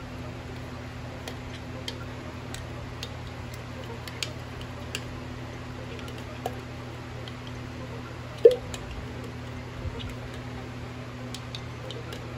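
A spoon ticking and scraping against the inside of a glass jar as a potassium nitrate and sulfuric acid mixture is stirred: irregular light clinks, with one louder knock a little past the middle.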